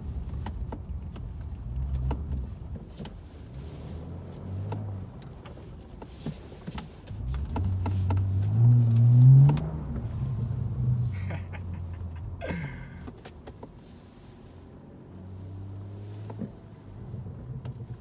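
BMW 4 Series' turbocharged inline-six engine heard from inside the cabin, revving up hard about halfway through as the car is driven sideways through a snowy turn, then easing back down, with scattered light ticks and knocks.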